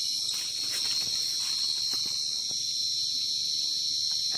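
Dense chorus of field crickets chirping steadily, a high, unbroken trill, with a few faint taps and scrapes of a stick prodding the soil.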